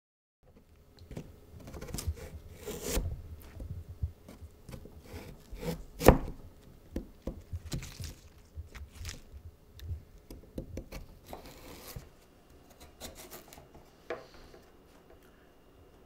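Kitchen knife cutting carrots and lettuce on a cutting board: irregular knocks and scraping strokes, with one sharp knock about six seconds in. The cutting grows quieter after about twelve seconds.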